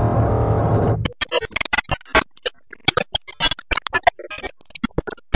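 Intro music and sound effects under a title card: a loud, sustained droning chord cuts off suddenly about a second in. Rapid choppy stuttering fragments follow, like a glitch effect.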